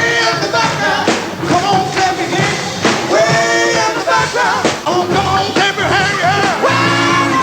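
Rock band playing a song with a singer's voice over it, including long held sung notes a few seconds in and again near the end.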